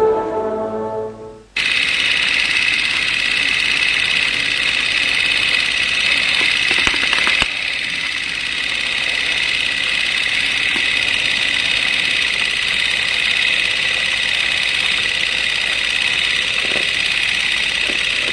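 Brass music fading out, then a steady shrill high-pitched electronic drone on the soundtrack that starts abruptly about a second and a half in and holds on without a beat or melody.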